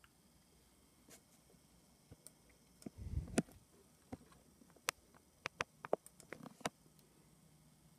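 Quiet room with scattered faint clicks and taps: a dull knock with a sharp click about three seconds in, then a quick irregular run of about eight sharp clicks a couple of seconds later.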